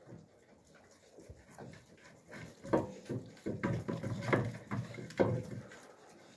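Alabai (Central Asian Shepherd) puppies eating from metal pans: a run of short, irregular chewing and gulping sounds and knocks against the pans, starting about two and a half seconds in and stopping shortly before the end.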